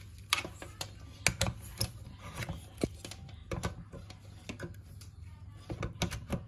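Irregular clicks, taps and rubbing as a battery charger's plug is handled and pushed into a power strip socket, over a steady low hum.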